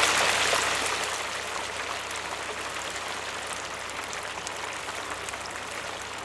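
A pan of curry sizzling on the stove: a steady hiss with scattered small pops. It settles somewhat quieter over the first second or so.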